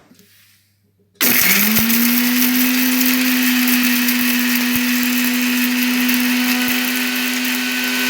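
Electric mixer grinder (mixie) starting up about a second in, its motor whine rising quickly to speed and then running steadily, grinding a masala of onion, garlic, ginger and whole spices.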